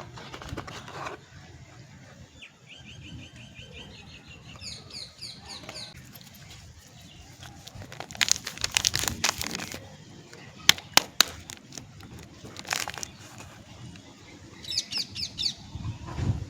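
Paper and cardboard soap packaging being handled and opened, with several loud bursts of rustling and crinkling. Birds chirp in short rapid trills in the background a few times.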